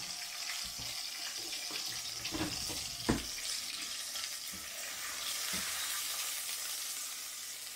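Beef steak sizzling in hot oil in a frying pan, with a wooden spatula moving it about; one sharp knock about three seconds in, with a few fainter clicks.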